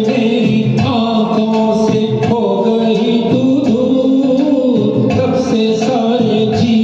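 A male voice sings a Hindi film song over a karaoke backing track, with a melody that bends and holds long notes.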